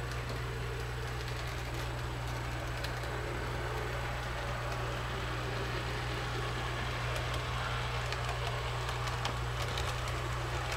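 HO-scale model train running on the layout: a faint steady rumble of the small motor and wheels on the track over a constant low hum.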